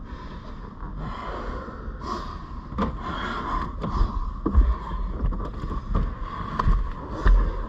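Two grapplers scuffling in a car's back seat: bodies and clothing shifting against the seat upholstery, with scattered dull thumps against the car interior and hard breathing, over a steady background hum.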